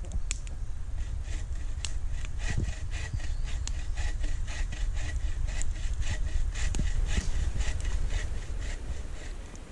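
Hand saw cutting firewood in even back-and-forth strokes, about three a second, over a steady low rumble; the sawing stops just before the end.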